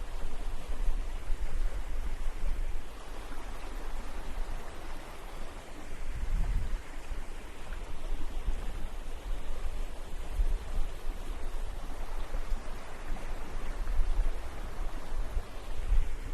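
Sea waves washing up on a beach, a steady rushing noise, with gusts of sea wind buffeting the microphone; one stronger gust comes about six seconds in.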